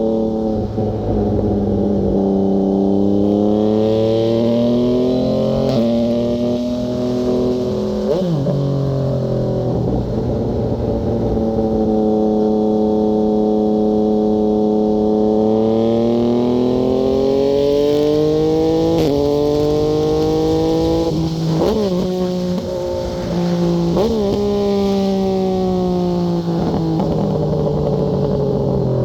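Yamaha MT-09 three-cylinder engine through a Fuse Caracol exhaust with the dB killer removed. The engine speed rises and falls steadily while it runs, with a few sudden drops in pitch.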